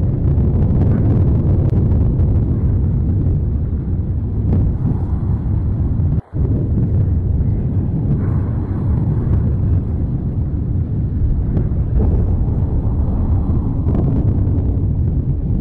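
Lava fountaining at Mount Etna's Voragine crater: a continuous, loud low rumble of the eruption that swells about eight and twelve seconds in. The sound drops out briefly about six seconds in.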